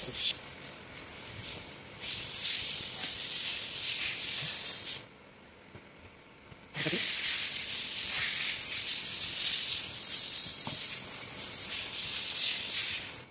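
A loud, steady high-pitched hiss that stops for about two seconds midway, then starts again and cuts off abruptly near the end.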